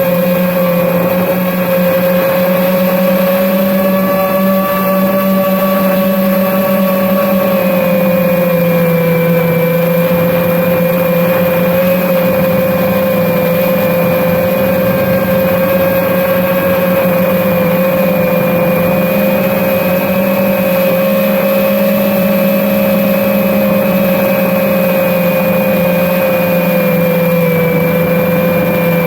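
FPV racing quadcopter's brushless motors and propellers whining steadily in flight, the pitch wandering only slightly with throttle.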